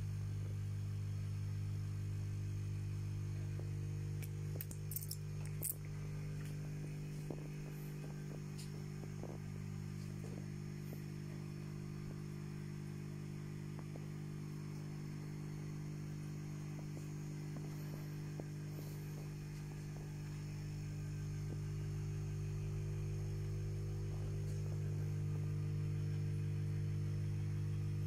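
Steady low electrical hum of running aquarium equipment, growing slightly louder after about twenty seconds, with a few faint clicks and taps about four to nine seconds in.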